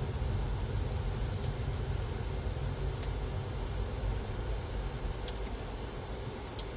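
Steady low rumble of a car's engine and tyres heard from inside the cabin while driving slowly on city streets, with a few faint ticks.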